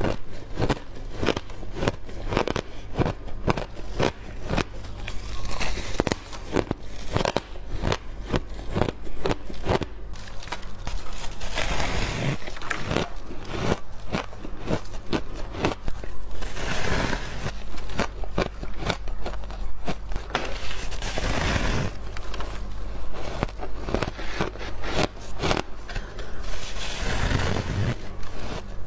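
Refrozen shaved ice being bitten and chewed close to the microphone: a steady run of crisp crunches and crackles, with a louder bite every few seconds.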